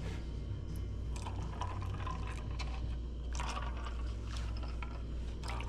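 Liquid pouring into a glass as a Bailey's, Kahlua, vodka and coffee drink is mixed, with a few light clinks. A steady low hum runs underneath.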